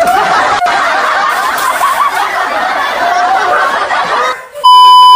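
Laughter from several voices in a dense, continuous jumble, then a loud steady beep about four and a half seconds in that cuts off abruptly.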